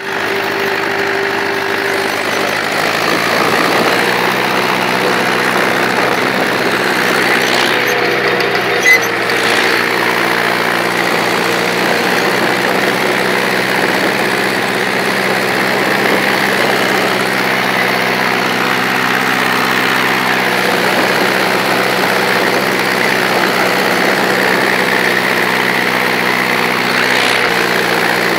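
Ursus C-355 tractor's four-cylinder diesel engine running steadily under load while pulling a spring-tine cultivator in fourth gear, heard up close from the driver's seat. A single sharp knock sounds about nine seconds in.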